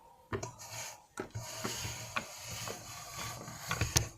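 Handling noise of small plastic toy figures and play-set pieces being moved about: scattered clicks and knocks, a stretch of rubbing and scraping in the middle, and a sharp click near the end.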